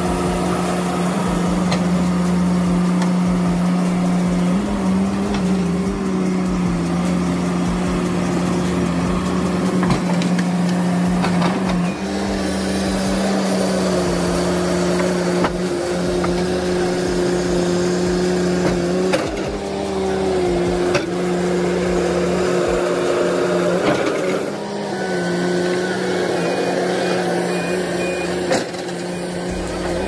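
Heavy diesel machinery running at high, steady revs, with the pitch dipping briefly a few times and a few knocks: a tracked excavator working to pull a John Deere skidder out of deep mud.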